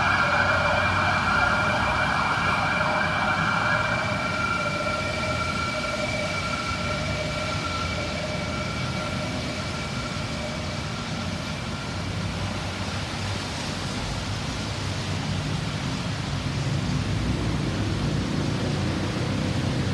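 Emergency vehicle siren holding a steady tone that fades away over the first dozen seconds, leaving steady road traffic noise that grows louder near the end.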